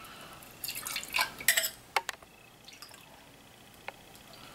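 Liqueur glugging from a bottle into a metal jigger, a run of gurgles and drips in the first two seconds, then quieter with a light click later on.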